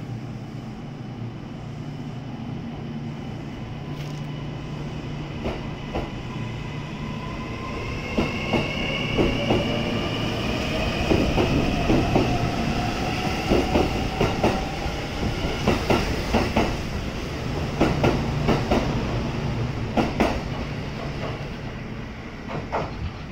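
Kintetsu 80000 series "Hinotori" electric limited express pulling out of the station. Its traction motors whine in several tones that rise steadily in pitch as it speeds up, and its wheels clack over the rail joints. The sound fades near the end as the last car leaves.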